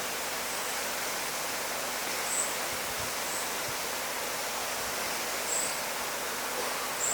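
Steady rushing of flowing water, with four short, high-pitched chirps scattered over it.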